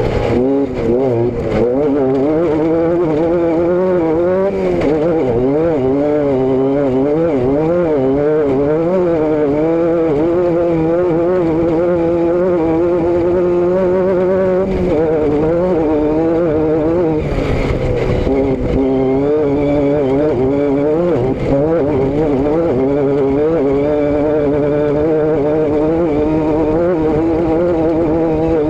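A motor vehicle's engine and exhaust running continuously while driving, the pitch wavering up and down with small changes in engine speed.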